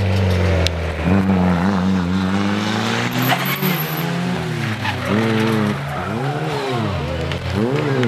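Rally car engines revving hard as the cars pass close on a tarmac stage. The revs hold high at first, then rise and fall sharply several times in quick succession near the end, as the driver lifts off and changes gear.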